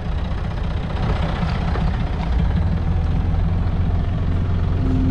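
Heavy vehicle engine running steadily with a low rumble that grows a little louder about two seconds in.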